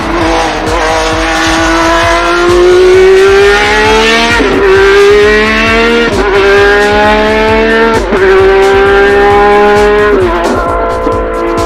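Ferrari 333 SP's V12 racing engine under hard acceleration, heard onboard, its pitch climbing through the gears with quick upshifts about four and a half, six and eight seconds in. It then holds a steady high note before the pitch falls as the throttle comes off near the end.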